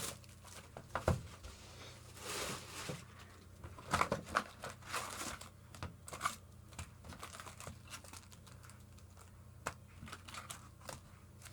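Plastic wrapping tearing and foil trading-card packs crinkling while a box of cards is opened and emptied, with scattered light clicks and taps.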